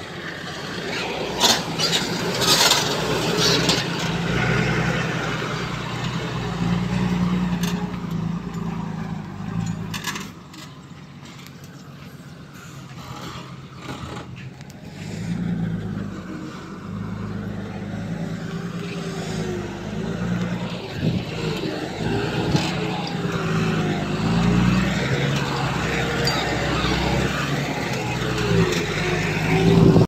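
Heavy earthmoving machine's diesel engine working under varying load, its pitch rising and falling, with sharp clanks and knocks, loudest in the first few seconds. The engine eases off for a few seconds about a third of the way in, then works up again.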